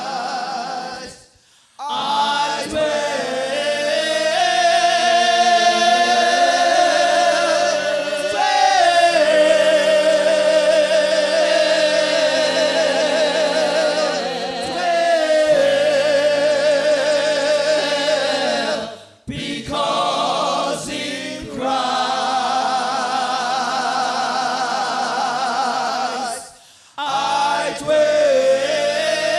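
Gospel choir singing in parts, holding long notes with vibrato, with three brief breaks between phrases.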